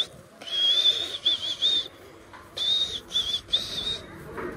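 High, clear whistling in two phrases. Each phrase is a held note followed by a few short dipping notes.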